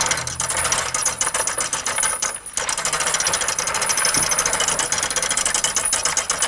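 A fast, steady rattle of clicks, with a brief dip about two and a half seconds in, that stops suddenly at the end.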